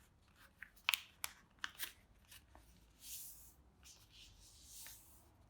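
A sheet of paper being folded and creased by hand, faintly. There are a few sharp crackles in the first two seconds, then soft rustling swishes as the folds are pressed flat.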